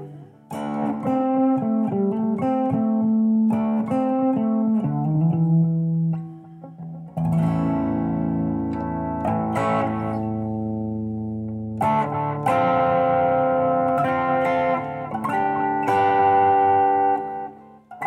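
Epiphone Dot semi-hollow electric guitar being played: a quick run of picked single notes, then notes and chords left to ring, with brief breaks about six seconds in and just before the end.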